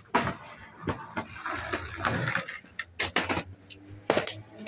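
Skateboard landing from a flip trick on a concrete sidewalk: sharp clacks of the deck and wheels hitting the concrete, repeated a few times as the board tumbles, with the rough rumble of its wheels rolling between them.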